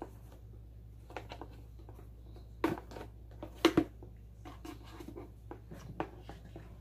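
Plastic clicks and knocks from a Fluval 407 canister filter as the locking clips on both sides are released and the motor head is worked loose and lifted off the canister. A scattering of short clicks, the two loudest about a second apart near the middle.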